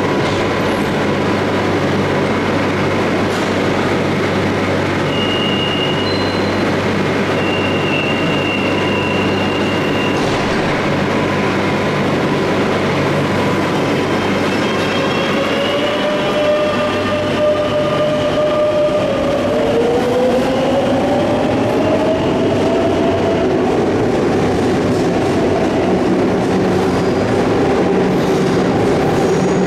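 A Madrid Metro Line 10 train running through the station with a loud, continuous noise of wheels and motors. About twenty seconds in, a motor whine drops in pitch and then climbs steadily, as when the train pulls away.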